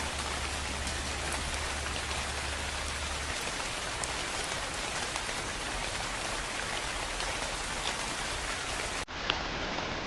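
Steady rain falling, with no music or voice over it. About nine seconds in, the rain cuts out for an instant and comes back.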